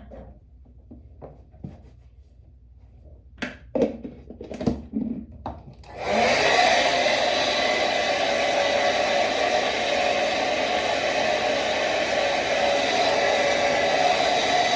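A few clicks and knocks of handling, then about six seconds in a hair dryer switches on and runs steadily, a loud rush with a constant hum.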